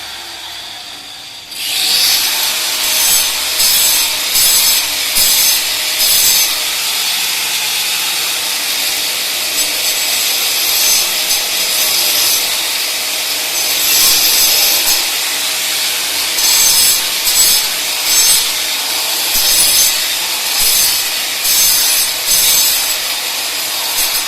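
Hand saw cutting through pipe in steady back-and-forth strokes, starting about a second and a half in.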